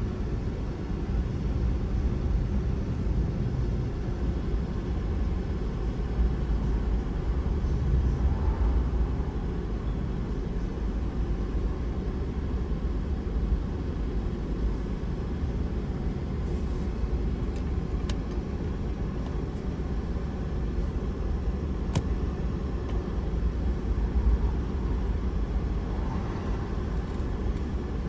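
Car driving along a city street: a steady low rumble of tyres and engine, with two faint clicks in the second half.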